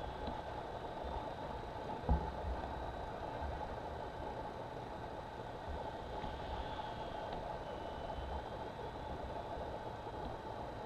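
Wind buffeting the microphone with a low, gusty rumble, over which the faint high whine of the Parkzone UM Corsair's small electric motor and propeller wavers up and down in pitch as the model plane flies. A single thump about two seconds in.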